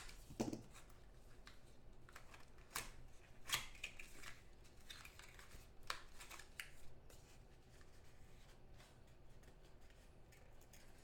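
A small cardboard trading-card box being torn open and a stack of cards slid out of it: faint, scattered rustles, crinkles and clicks of card stock and paper, busiest in the first seven seconds and quieter after.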